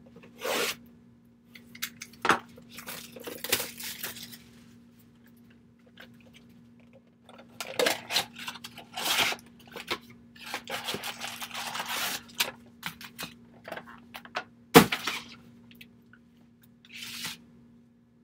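Foil packs of 2020 Bowman baseball cards being torn open, with wrappers crinkling and cards handled in irregular rustling bursts. A single sharp knock comes a few seconds before the end.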